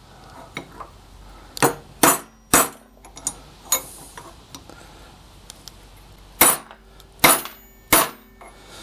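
Small hammer tapping on the end of a Grizzly G7945 drill press quill to seat a replacement SKF spindle bearing: sharp metallic taps with a brief ring, three in quick succession about a second and a half in, a lighter one near four seconds, then three more spaced out in the second half.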